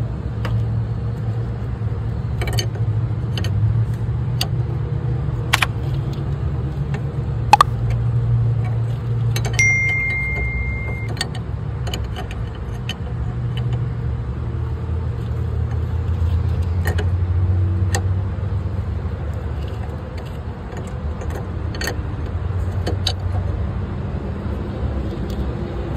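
Metal wrench clicking and clinking against an oil cooler line fitting, in sharp, scattered clicks over a steady low rumble.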